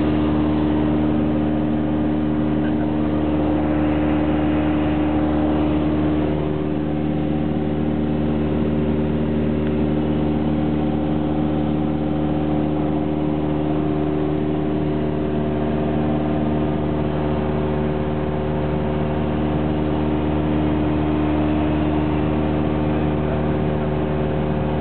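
Cabin noise of a Cessna 172SP in level cruise: its four-cylinder Lycoming IO-360 engine and propeller running steadily at constant pitch, with a hiss of airflow over the airframe.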